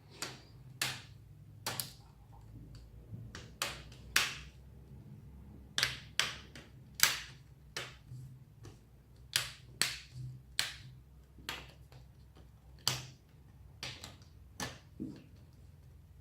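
Plastic laptop screen bezel clicking and snapping as it is pressed back into place around the lid. About twenty sharp clicks and taps come at an uneven pace, a few louder snaps among them.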